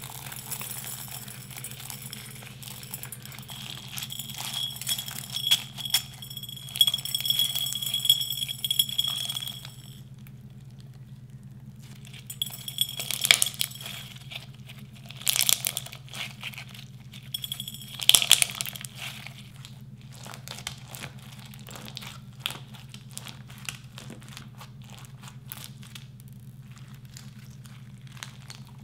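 Clear slime packed with plastic beads being squeezed and pressed by hand, crackling and crunching with many small clicks and a few louder squishes. About four seconds in, a thin high squeal runs for several seconds. A steady low hum lies under it all.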